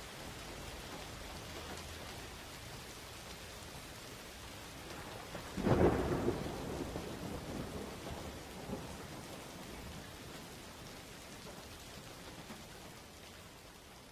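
Steady rain hissing, then about five and a half seconds in a sudden loud thunderclap that rumbles away unevenly over the next few seconds.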